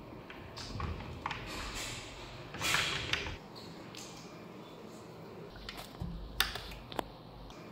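Wardrobe sliding door and drawer being pulled open by hand: short scrapes, then a louder sliding scrape along the track a little under three seconds in, and two sharp knocks near the end.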